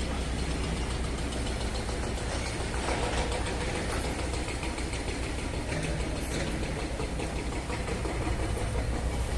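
Steady low engine rumble under an even wash of outdoor noise.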